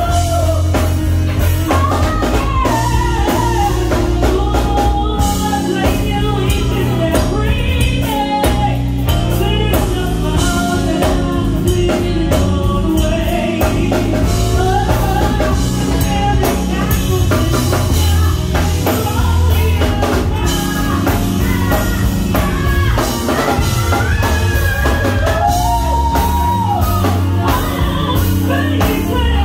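A live band playing through a PA: singing over drum kit, bass and electric guitar, with a steady beat.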